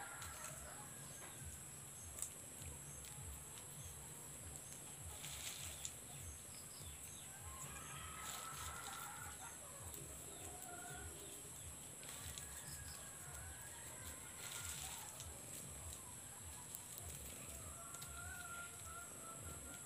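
Faint chickens clucking, with a few drawn-out calls about eight seconds in and again near the end, over a steady high-pitched whine and low scattered rustling.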